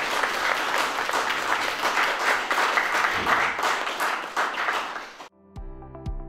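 A small audience applauding, cut off suddenly about five seconds in by electronic music with a regular thumping beat.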